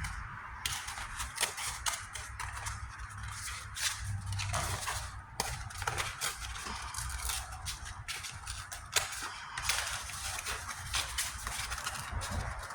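Hand sanding with 220-grit sandpaper on a primed patch of a steel truck tailgate: irregular scratchy strokes with short sharp scrapes, over a steady low rumble.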